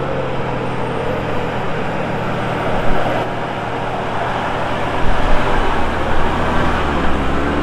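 Heavy truck's diesel engine labouring at full power up a steep hairpin bend: a steady low drone that deepens and gets louder about five seconds in as the load comes on.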